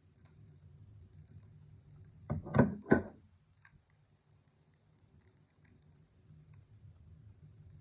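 Trading card packs and cards being handled by hand: faint scattered clicks and rustles, with a short cluster of two or three louder knocks about two and a half seconds in.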